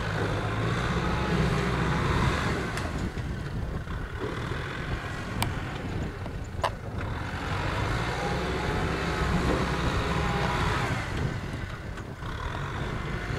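Kubota M6040SU tractor's four-cylinder diesel engine working under load as it pulls a trailer through deep mud, swelling louder twice and easing between. Two sharp knocks sound in the middle.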